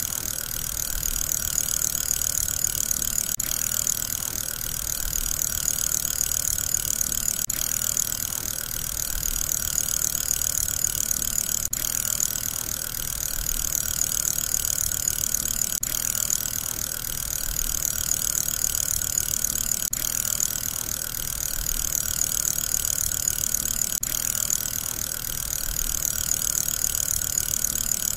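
A fidget spinner's ball bearing spinning with a steady, high whir, swelling and easing slightly every four seconds or so.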